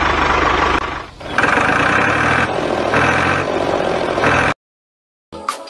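Truck engine running, dipping briefly about a second in, then cutting off abruptly about four and a half seconds in. After a moment of silence, music begins near the end.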